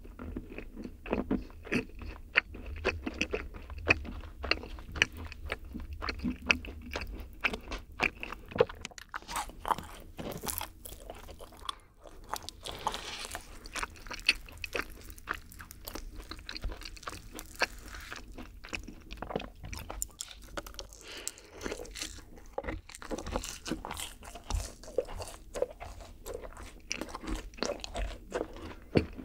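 Close-miked chewing and biting of yakgwa, Korean honey-fried cookies, eaten with vanilla ice cream: a steady stream of wet mouth sounds and small clicks.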